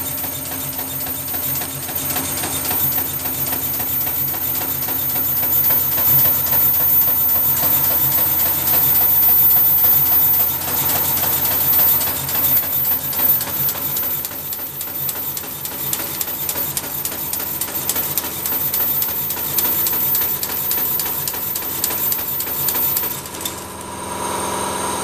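7 1/4-inch-gauge Corpet-Louvet 0-6-0 tank locomotive running on compressed air instead of steam, with a steady rapid mechanical beat from its cylinders and motion.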